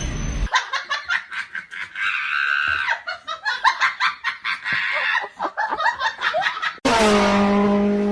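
Someone laughing in quick, choppy bursts, then music starts abruptly near the end.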